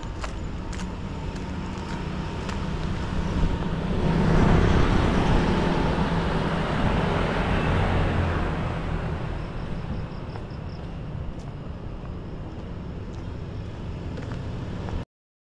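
A motor vehicle passing close by on the road: its engine and tyre noise swells about four seconds in, holds for a few seconds, then fades away. The sound cuts off abruptly just before the end.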